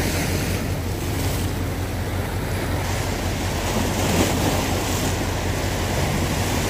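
Steady rumbling drone of a 4x4 driving on a rough trail, with engine and tyre noise blended into a continuous wash.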